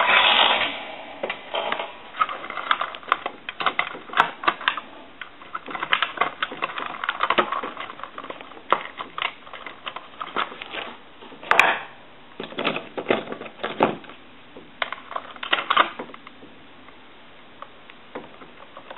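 Irregular light clicks, taps and short scrapes of small hand tools and parts being handled on a workbench. There is one sharper click a little past the middle.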